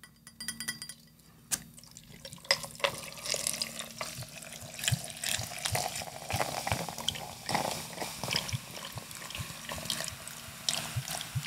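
Mexican Coca-Cola poured from glass bottles into glasses of ice, the soda splashing and fizzing with a dense crackle over the ice. Quieter at first, it grows louder after about two seconds.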